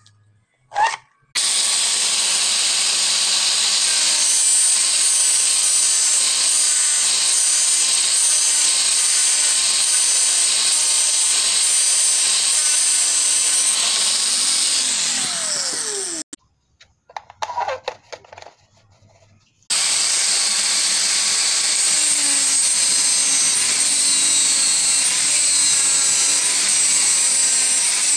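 Angle grinder with a cutting disc running and cutting through 90 mm plastic pipe: a loud, steady whine with grinding noise. It stops after about 15 seconds, a few brief clatters of the pipe being handled follow, and it starts again about three seconds later.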